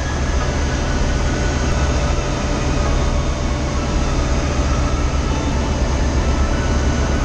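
Ship's engine-room machinery running: a loud, steady drone with a deep hum and a couple of faint constant whines, unchanging throughout.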